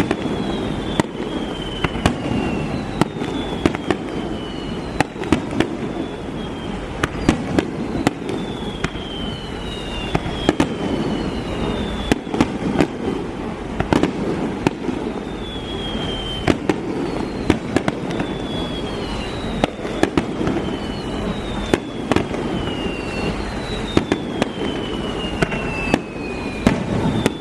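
Fireworks display: a rapid string of sharp bangs and crackles, with repeated whistles that each fall in pitch over about a second, over a steady rumble.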